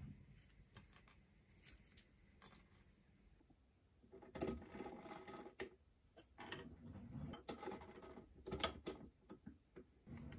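Faint, irregular clicks and light scraping of small metal parts and hand tools as a welding machine's gas solenoid valve is taken apart, with a few louder handling sounds about halfway through and again near the end.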